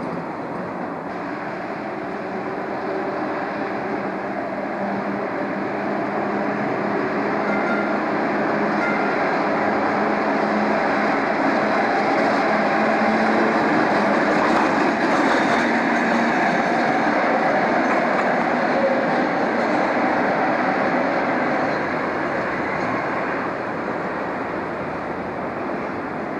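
Vintage electric streetcar running past on its rails: a steady rumble of wheels and running gear that builds to its loudest about halfway through, then fades as the car moves away.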